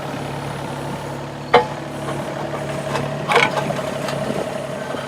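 Kobelco SK17SR mini excavator's diesel engine running steadily, with a sharp knock about a second and a half in and a shorter clatter a little past three seconds, as the half hitch is worked in to pick up a bucket.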